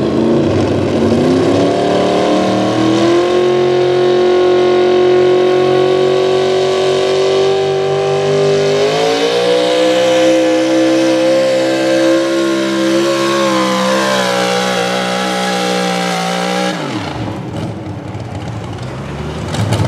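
Open gas 4x4 pulling truck's engine at full throttle under sled load. The revs climb over the first few seconds, hold high, step up again about nine seconds in, then cut off abruptly about three seconds before the end.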